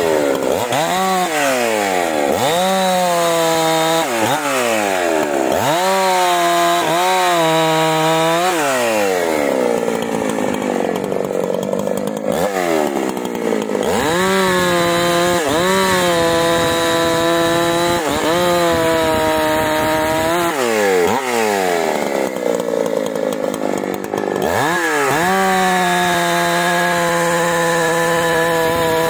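Husqvarna 372 two-stroke chainsaw cutting through eucalyptus logs. The engine revs up to full throttle for each cut, holds there while sawing, and drops back between cuts, again and again.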